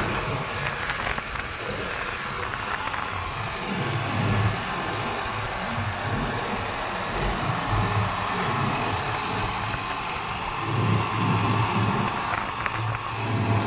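New Holland 3630 TX tractor's three-cylinder diesel engine running while it drives a straw reaper. The low engine note swells and eases several times over a steady rushing noise from the machine.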